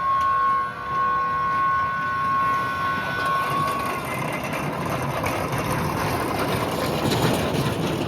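A mini train sounds one long steady whistle note for about four seconds, then the rattling clatter of the train running on its track grows louder.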